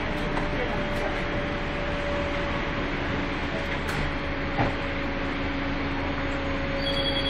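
Karosa B931 city bus heard from inside near the front: engine and drivetrain running steadily as the bus drives, with a steady whine. A single knock comes about four and a half seconds in, and a high steady tone starts near the end.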